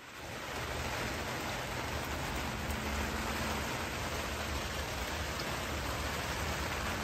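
Steady rain falling, a continuous even patter.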